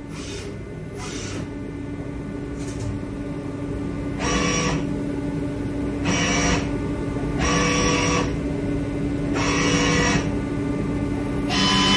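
DMG DMU 50 eVolution 5-axis CNC machining centre running: a steady hum with repeated bursts of hissing machine noise, about every one and a half to two seconds from about four seconds in, going continuous near the end.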